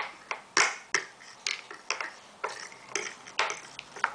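Two metal forks tapping and scraping on a plastic high chair tray, a run of irregular sharp clicks at about two a second.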